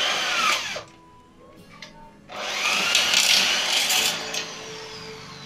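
Corded electric drill boring into an aluminium square tube in two bursts: a short one at the start and a longer one from about two seconds in. Each speeds up and then winds down with a falling whine as the trigger is let go. Faint background music underneath.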